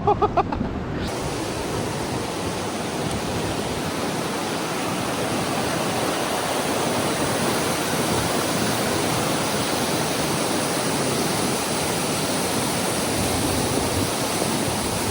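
Waterfall and creek water rushing steadily, an even hiss with no break.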